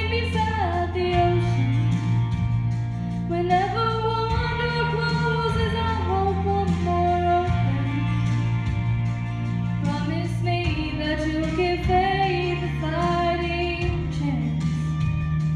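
A young woman singing a country song into a handheld microphone, amplified through stage speakers over a recorded accompaniment with held bass notes that change every few seconds.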